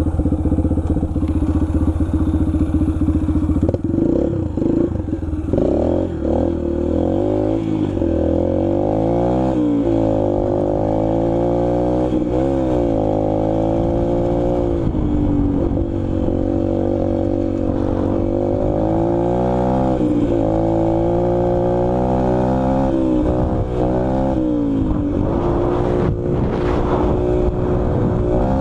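Dirt bike engine under way, holding a steady note for the first few seconds, then rising and falling in pitch over and over as it is revved up and backed off.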